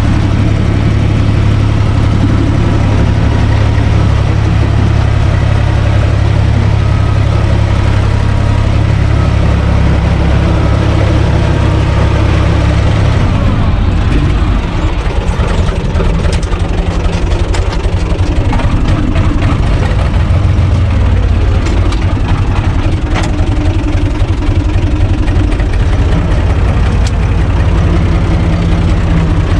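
Universal U445 DT tractor's four-cylinder diesel engine running steadily, heard from inside the cab. About halfway through the sound turns rougher, with clattering and knocks, as the rotary tiller works the soil behind.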